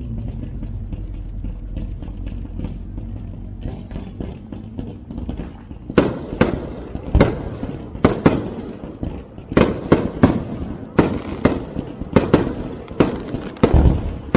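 Aerial fireworks display: a steady rumble of crackling bursts, then from about six seconds in a rapid run of loud, sharp bangs, roughly two a second.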